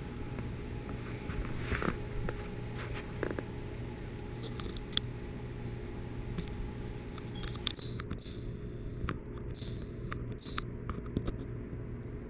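Quiet room tone with a steady low hum, broken by scattered light clicks and taps, most of them in the second half.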